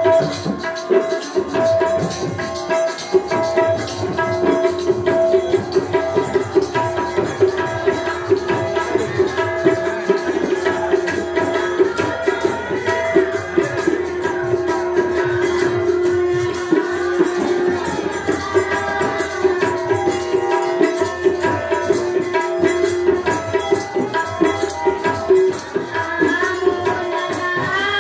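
Bengali devotional kirtan music: a two-headed hand drum beats a fast, dense rhythm over steady held notes, with a wavering melody line rising toward the end.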